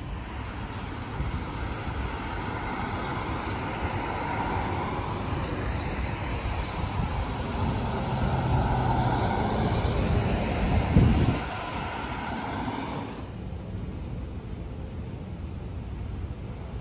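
Road traffic passing on a street. A vehicle passes close, building to a loud low rumble about 11 seconds in, and then the sound drops to a quieter, duller traffic hum about 13 seconds in.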